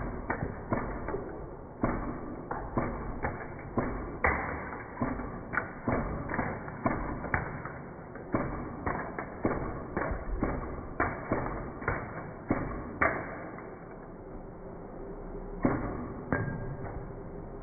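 Toy mini-gun projectiles hitting LEGO ship models in a quick, irregular run of sharp hits, about two a second, knocking plastic pieces loose. The hits stop about two-thirds of the way in, and two more come near the end.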